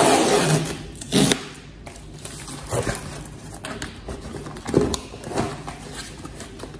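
Cardboard book mailer rustling and scraping as it is torn open and handled and a book is slid out, in several short scrapes, the loudest at the start and about a second in.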